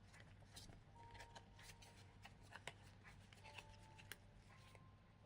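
Faint soft clicks and rustles of trading cards being handled and slid against one another, over a low steady hum.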